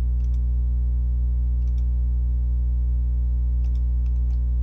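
Steady electrical mains hum with its stack of overtones, and a handful of faint computer mouse clicks scattered through it as line points are placed in a CAD sketch.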